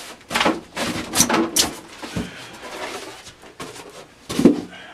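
Styrofoam packing and plastic wrap being handled and pulled from a cardboard box. A run of irregular rustles and scrapes comes in the first two seconds, and one louder, short handling sound about four and a half seconds in.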